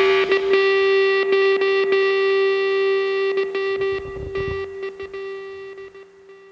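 Background rock music ending on one long held electric guitar note that slowly fades away near the end.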